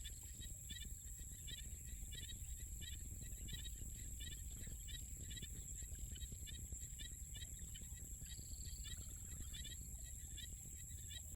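Insects calling in a field: a steady high-pitched trill under short chirps repeating about twice a second, with a low rumble of wind or handling noise beneath.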